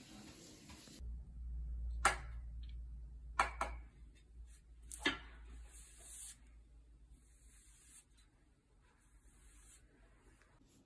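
Paintbrush bristles swishing back and forth over a flat painted panel, a soft scratchy hiss in strokes. In the first half there are three sharp clicks over a low rumble.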